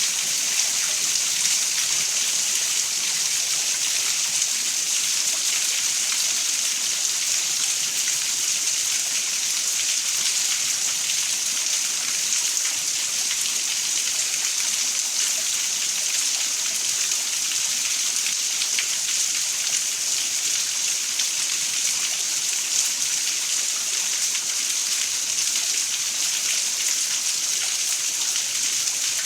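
Heavy storm rain pouring down steadily, an even hiss with no thunder heard.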